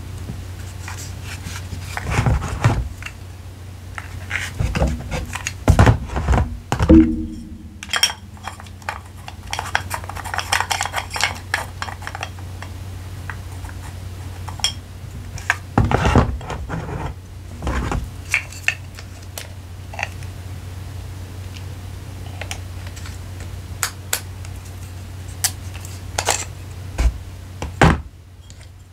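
Hard objects being handled during a camera unboxing: scattered sharp taps, clicks and clinks as items are picked up and set down. A steady low hum runs underneath.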